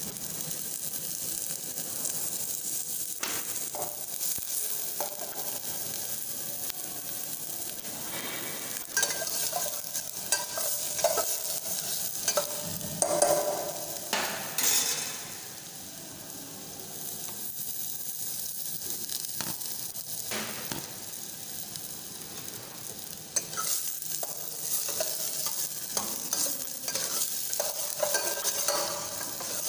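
Chopped onion, garlic and ginger sizzling in hot oil in a stainless steel saucepan, with a metal ladle stirring and scraping against the pan at intervals. The sizzle and stirring ease off for a few seconds around the middle, then pick up again.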